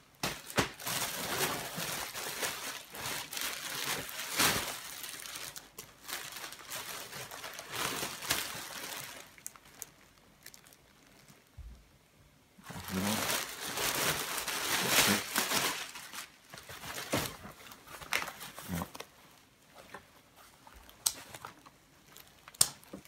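Clear plastic wrapping crinkling and rustling as a packed backpack is handled and pulled out of its bag, in uneven bursts with a quieter pause midway.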